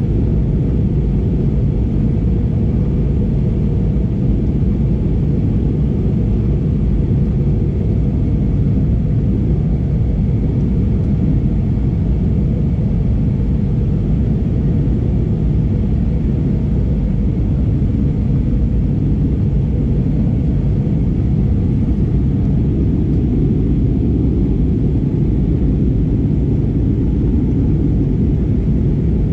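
Steady low rumble inside the cabin of an Airbus A320neo in flight, from its Pratt & Whitney PW1100G geared turbofan engines and the airflow over the fuselage, heard at a window seat behind the wing.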